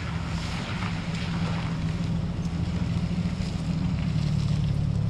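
A steady low mechanical hum, like a motor running, with a hiss of air over it, growing slightly louder.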